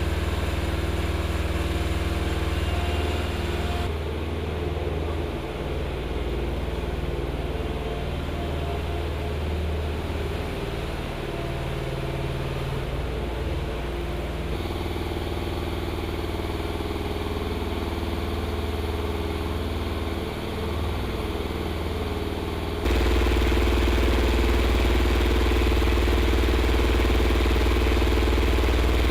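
Machinery engines running steadily with a low hum. The sound changes abruptly about four seconds in and again near the middle, and becomes louder about two-thirds of the way through.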